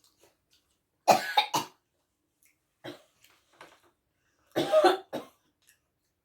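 A person coughing in short, loud bouts: two or three coughs about a second in, a weaker one near three seconds, and another hard bout around five seconds.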